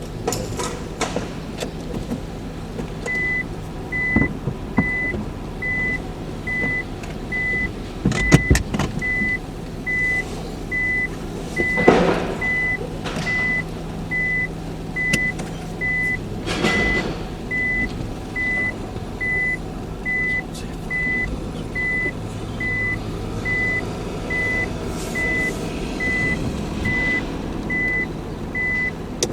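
A vehicle's reversing alarm beeping steadily at one high pitch, a little over once a second, over a low hum. There are a few knocks about a third of the way in and a louder whoosh near the middle.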